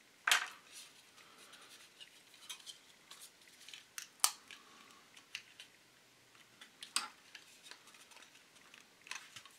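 Scattered small clicks and light taps of a styrene model car body and its loose plastic parts being handled and pried with a metal tool handle. The loudest click comes right at the start, with sharper ones about four and seven seconds in.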